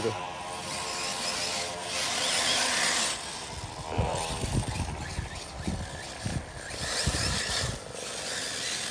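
Arrma Typhon 6S 1/8-scale RC buggy's brushless motor, on a 4S LiPo, whining up and down as the buggy speeds up and slows through thick grass. In the second half there are low rumbles and thumps.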